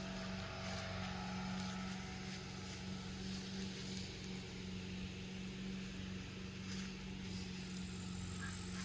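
Steady low hum, like an engine or machine running, over an even background hiss; a brighter high hiss comes in near the end.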